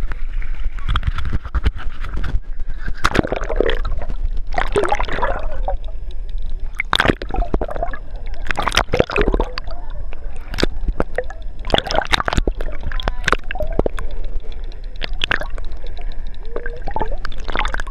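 Water sloshing, gurgling and splashing around a hand-held camera held just under the sea surface, with many short sharp splashes as it dips in and out of the waves.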